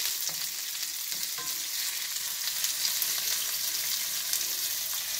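Chopped onions with whole spices frying in hot oil in a pan, a steady crackling sizzle, while a wooden spoon stirs them. The onions are at the early stage of sautéing toward golden brown.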